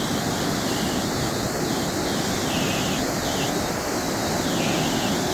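Water released from the Bhandardara dam's spillway pouring down into the valley in a heavy white torrent, a steady, even rush of falling water.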